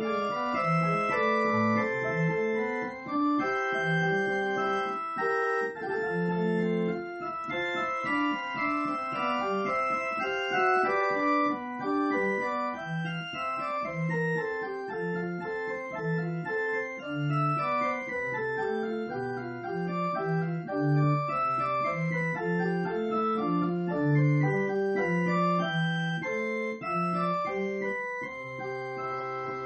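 Organ music: a brisk piece of quick running notes over a moving bass line, settling into a long held chord near the end.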